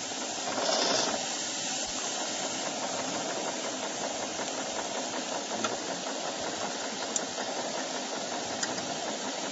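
Live-steam plant of a model steamboat under steam: a steady hiss of steam as the small steam engine runs, with a brief louder gush of steam about a second in.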